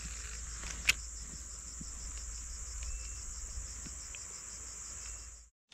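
A steady, high-pitched insect chorus with a fast, even pulsing, and a single sharp click about a second in; the sound cuts off abruptly near the end.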